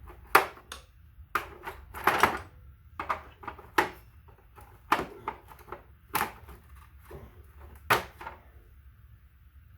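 Irregular sharp plastic clicks and knocks, about eight spread over several seconds, from the fender fasteners and clips being pried and worked loose to pull off the front fender of a Kawasaki Concours 14.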